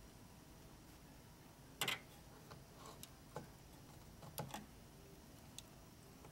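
A few short, sharp clicks and taps of needle-nose pliers pressing plastic push pins into the corner holes of a CPU cooler's plastic mounting plate. The loudest comes about two seconds in, with a small cluster about four and a half seconds in.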